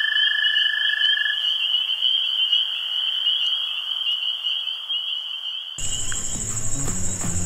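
Steady night chorus of trilling insects or frogs, a high continuous trill, with a second, lower trill stopping about a second and a half in. Near the end the sound changes abruptly to a higher-pitched trill with low background music notes underneath.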